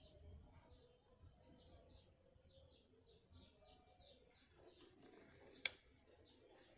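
Small birds chirping faintly in the background. Late on there is a single sharp click as the phone comes free of its protective case.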